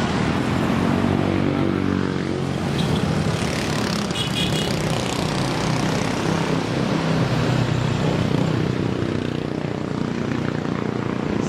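A motor vehicle's engine running steadily, its pitch drifting up and down a little.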